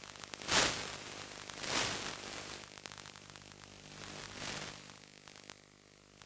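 Static hiss from an analog 5.8 GHz FPV video link, swelling in bursts of noise and fading away toward the end, over a faint steady hum with scattered ticks.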